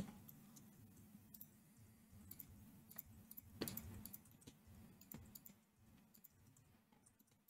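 Faint, scattered clicks of a computer keyboard and mouse as shortcut keys are pressed, over a faint low hum.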